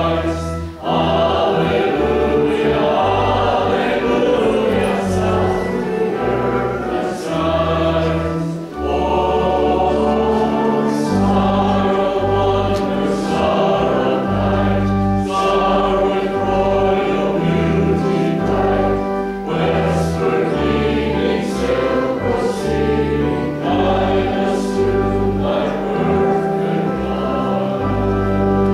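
Small mixed choir singing a hymn in parts, with sustained organ accompaniment underneath.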